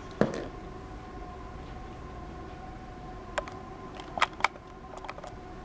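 Handling of a smartphone and its plastic back cover as they are set down on a cardboard box and table: one sharp knock just after the start, then a click near the middle, two quick clacks and a few light ticks near the end, over a steady low hum.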